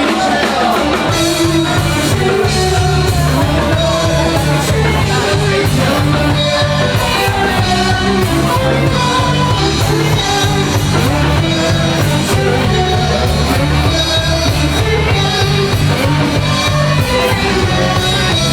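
A live rock band playing amplified music, with bass, guitar, drums and a singing voice.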